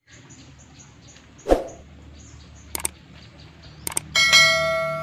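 Subscribe-button animation sound effects: a sudden whoosh-like hit about one and a half seconds in, two quick pairs of mouse clicks, then a bell ding just after four seconds that rings on and slowly fades. Faint high chirps repeat evenly underneath.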